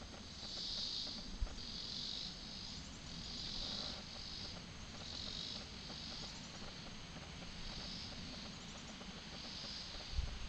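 Insects calling outdoors on a summer evening, a buzzy call repeating about once a second. There is one brief thump about a second and a half in.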